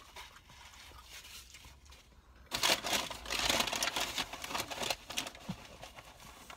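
Paper fast-food packaging crinkling and rustling as it is handled, starting about two and a half seconds in and going on for a couple of seconds in quick crackles.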